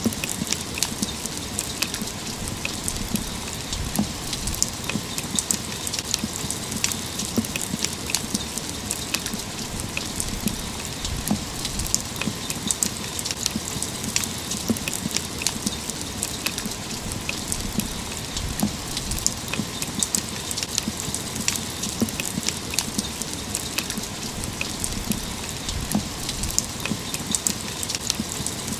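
Steady rain falling, with many individual drops striking close by as short sharp ticks and splashes on a wet railing.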